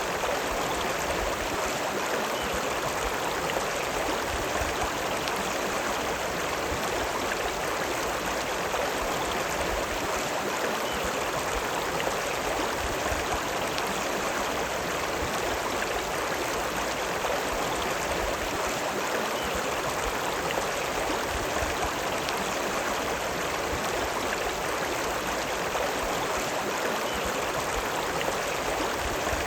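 River water running steadily: a continuous, even rushing hiss with no breaks or changes.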